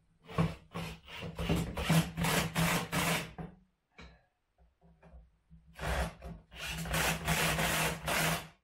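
Kobalt 24-volt brushless cordless impact driver with a deep socket running nuts down onto the cart frame's bolts: two runs of about three seconds each with a pause between, a steady buzz under a fast rattling of the impacts.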